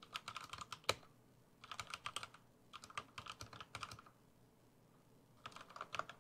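Rakk Diwa V2 68-key mechanical keyboard being typed on as a sound test: four short bursts of rapid keystroke clicks with brief pauses between them.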